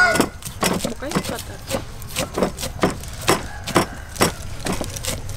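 Cleavers chopping leafy greens on wooden chopping boards: uneven knocks of blade on wood, about three a second, from more than one chopper at once.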